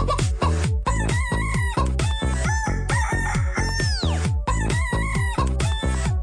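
Electronic dance track with a steady kick-drum beat and chicken-clucking samples over it; a long sweep falls in pitch about four seconds in.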